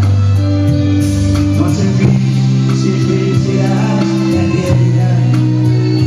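Live band playing a nueva ola ballad: held chords that change every couple of seconds over bass and guitar, with light cymbal or tambourine ticks, and a male voice singing.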